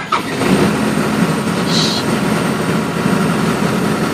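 Excavator engine running steadily at idle with a low hum, and a short high hiss a little under two seconds in.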